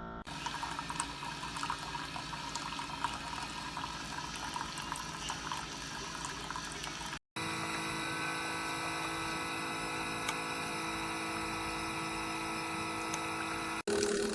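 Keurig K-Mini single-serve coffee maker brewing: its pump hums while hot water runs through and pours out. It comes in two stretches, broken by a brief dropout about halfway.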